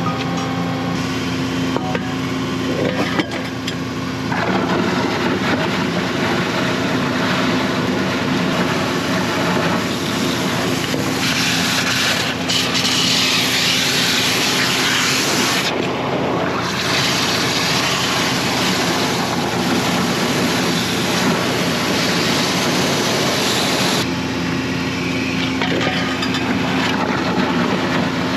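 DAF combination jetting and vacuum tanker sucking out a road gully through its suction pipe: a steady machine drone with a constant low tone. From about ten seconds in until near the end, a loud hiss of water jets spraying into the gully joins it, with a brief break partway.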